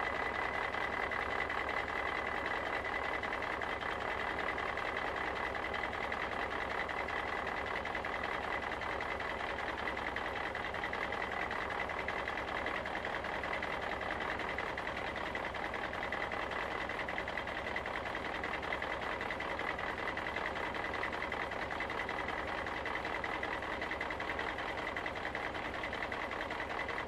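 Steady mechanical running sound like a small motor or engine, with a fast, even rattle and a thin steady whine, unchanging throughout.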